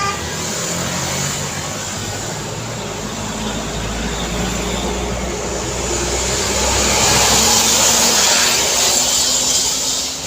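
Road traffic: engines rumbling and tyres hissing as vehicles pass, swelling loudest about two thirds of the way through as a vehicle goes by close, then easing off.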